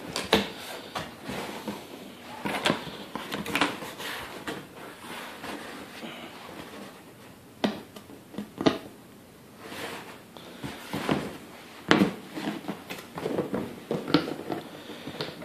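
Handling noise from a box being closed and moved about: irregular knocks, clicks and scrapes with rustling between them, the sharpest knocks a few seconds apart.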